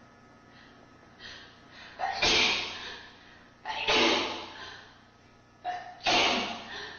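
A person sneezing three times in a row, about two seconds apart, each sneeze led by a quick catching inhale, with a few short breaths before the first.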